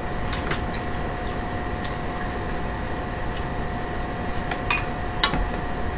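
Metal chopsticks clicking lightly against a dish and pan while eating, a few scattered taps with two sharper ones near the end, over a steady room hum with a faint whine.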